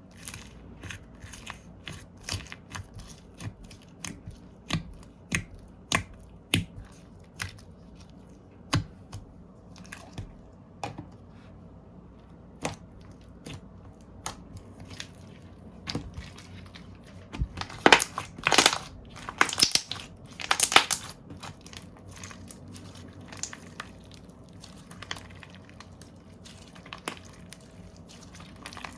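Slime being pressed and worked by hand, giving a run of sharp clicks and pops. A louder, denser stretch of them comes about 18 to 21 seconds in.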